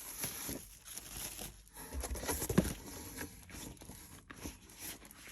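Rustling and crinkling of a pack of designer series paper being handled and its sheets moved about, with a sharper crackle about two and a half seconds in.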